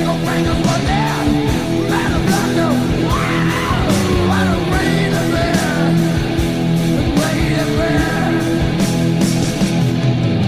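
1980s heavy metal song with distorted electric guitars, bass and drums. Over the held chords and steady cymbal hits, a high lead part glides up and down in pitch, strongest in the middle.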